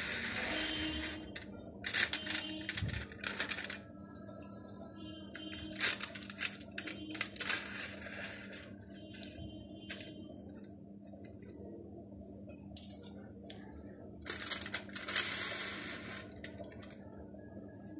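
Aluminium foil crinkling and tearing as wooden ice-cream sticks are pushed through the foil lids of disposable cups, in several short bursts with quieter gaps between, over a faint steady hum.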